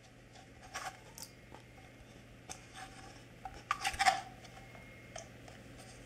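Light clicks and scrapes of a thin-walled 3D-printed PETG plastic pot being turned and flexed in the hands, with a louder flurry of them about four seconds in.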